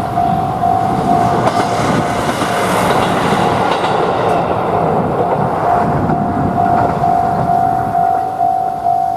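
Japanese railroad crossing warning bell sounding its steady electronic 'kan-kan' ding, about three times a second. A train passes over the crossing with a loud rumble and wheels clacking over rail joints, the rumble fading near the end.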